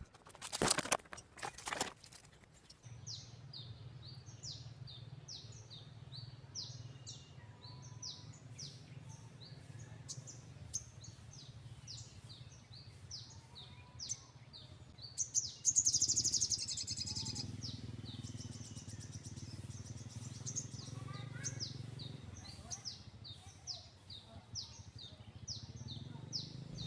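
Bird calls: a long, rapid, very regular series of short, high, downward-sliding chirps, several a second, with a louder, harsher call about halfway through. A steady low hum runs under the chirps. A few loud rustling knocks come in the first two seconds.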